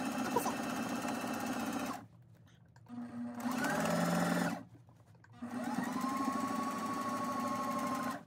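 Electric domestic sewing machine stitching quilting lines through padded cotton fabric, its needle rattling rapidly and evenly. It runs in three spells, stopping briefly about two seconds in and again about five seconds in.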